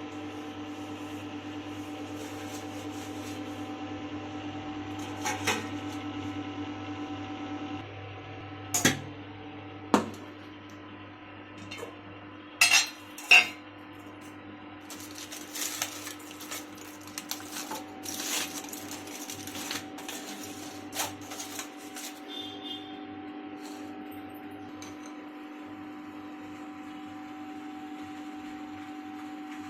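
Dishes and cutlery being handled: a few sharp clinks and knocks, then a run of lighter clattering. A steady hum underneath drops in level about eight seconds in.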